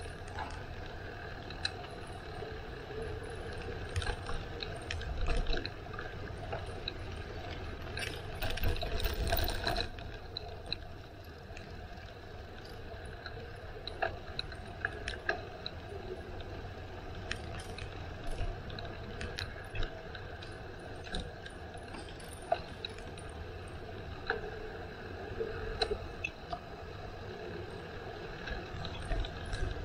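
Bicycle on the move: drivetrain and freewheel ticking, with scattered rattles and clicks over a steady low rumble and a louder stretch of clatter about eight seconds in.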